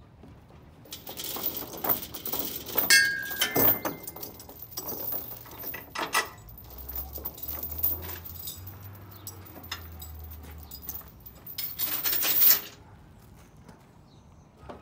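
Metal clinking, jangling and knocking from someone handling parts in a snowcat's open engine bay, with a short squeak about three seconds in. It stops abruptly near the end.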